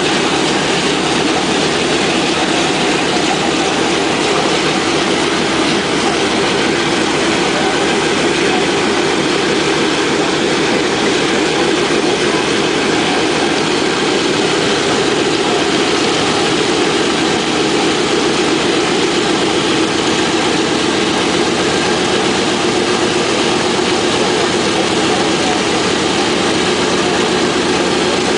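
Boeing B-17's Wright R-1820 Cyclone radial engines running at idle, a loud, steady drone that stays even throughout.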